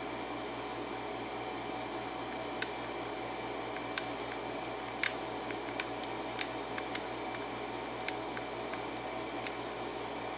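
Irregular small metallic clicks and ticks of a lock pick and tension wrench working the pins of a six-pin Schlage KIK pin-tumbler lock during single-pin picking. The clicks start a couple of seconds in, over a steady faint hum.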